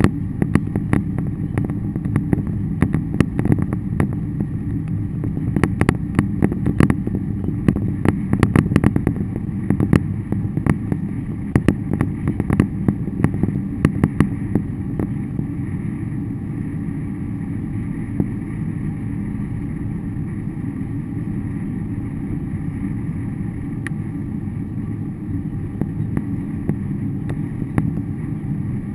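A vehicle driving, heard from inside the cabin as a steady low rumble of engine and road noise. Irregular sharp clicks and ticks come often during the first half, then thin out to a few.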